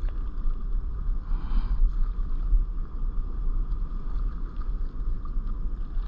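Wind buffeting an action camera's microphone out on the sea: an uneven low rumble with a faint rushing hiss above it.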